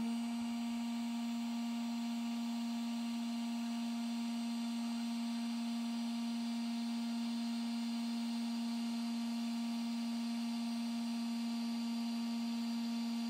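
Parkside PHLGA 20 Li-A1 cordless heat gun running on its 550 °C setting while shrinking heat-shrink tubing. Its fan motor comes up to speed right at the start, then holds a steady hum with a faint hiss of air.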